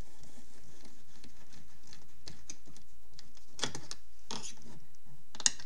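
A screwdriver backing a self-tapping screw out of the plastic inner door handle of a Renault Megane: a run of small scratches and clicks, with a sharper click near the end.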